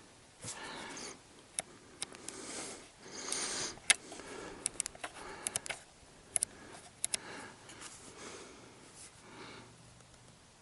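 Soft breathing close to the microphone, in short swells, with scattered sharp small clicks and taps from handling.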